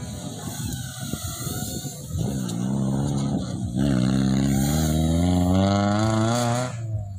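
Off-road rally 4x4's engine revving hard as it accelerates away on a dirt track. The pitch climbs, drops at a gear change about four seconds in, then climbs again until the driver lifts off sharply near the end.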